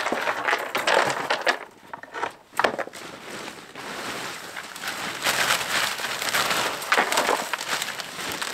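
Irregular crunching and rustling as gear is handled and packed onto a dog sled standing in snow.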